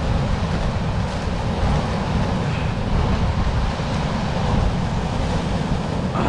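Wind buffeting the microphone, a steady low rumble, over the wash of surf on a beach.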